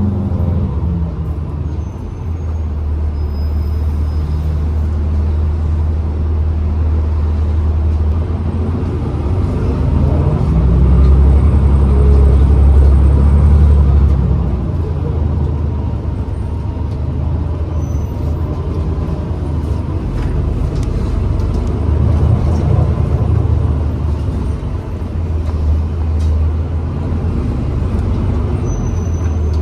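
Interior ride noise of a New Flyer XDE40 diesel-electric hybrid bus under way: a steady low drivetrain and road rumble that grows louder for a few seconds about ten seconds in, then settles, with light rattles over it.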